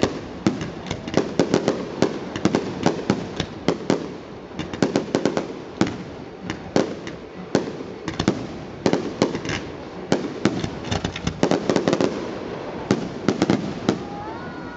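Aerial fireworks display: shells bursting overhead in a rapid, irregular barrage of sharp bangs and crackles, several a second, over a low rumble.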